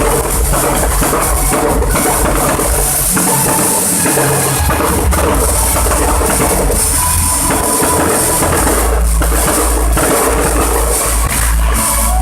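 Loud music with drums and heavy bass.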